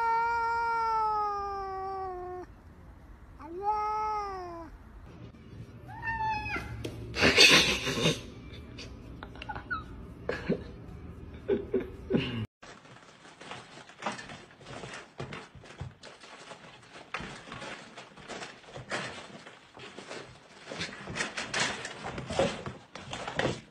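Domestic cat meowing: one long meow sliding slightly down in pitch, then two shorter rising-and-falling meows, then a louder, harsher cry. After that comes a long stretch of irregular light clicks and rustling.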